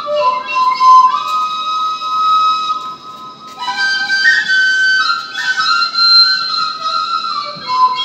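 Caval, a Romanian folk flute, played into a microphone: a melody of long held notes that step between pitches, with a short break about three seconds in.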